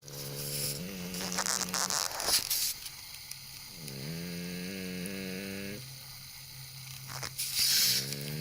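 An American Shorthair cat snoring in slow breaths, each breath a low droning snore with a rush of air, about every four seconds. The uploader puts the snoring down to its flat nose and weak breathing.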